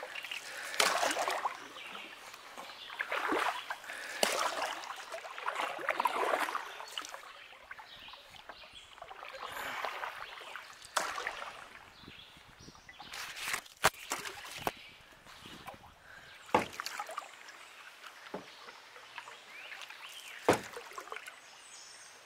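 Canoe paddle strokes swishing and splashing through the water every second or two, with a few sharp knocks later on.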